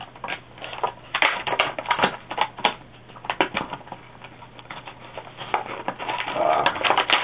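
Stiff packaging being pulled apart and handled, giving irregular sharp crackles and clicks.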